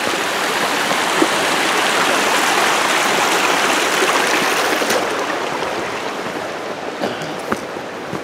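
Shallow stream running over rocks. The rush of water is loudest a few seconds in and fades after about five seconds.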